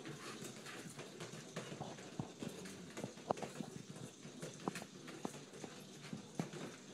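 Dogs' claws clicking and scrabbling on a tile floor as they scramble after a toy, in faint irregular taps.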